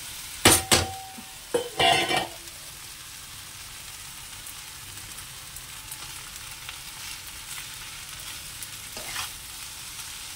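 A steel bowl knocked twice against a non-stick kadai as cooked rice is tipped in, the first knock ringing briefly, followed by a short scrape. After that the pan sizzles steadily, with a spatula scraping through the rice near the end.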